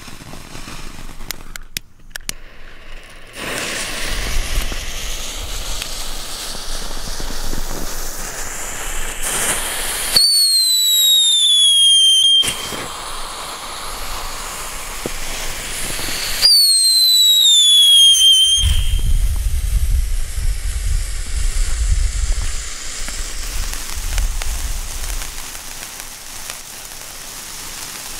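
A novelty toy-car firework ("Pink Lady") burning with a continuous hissing spray of sparks. Twice it lets out a loud falling whistle lasting about two seconds, around ten and seventeen seconds in. After the second whistle comes a stretch of low rumbling noise, and the sparks keep hissing to the end.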